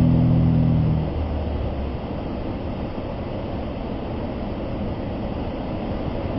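Steady, loud roar of a large waterfall, falling water rushing without a break. A brief low humming tone sits over it in the first second.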